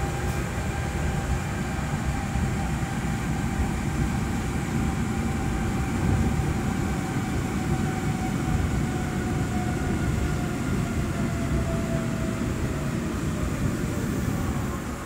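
Osaka Monorail train running on its rubber-tyred straddle beam: a steady low rumble with a thin motor whine above it. The whine slowly falls in pitch over the second half as the train slows.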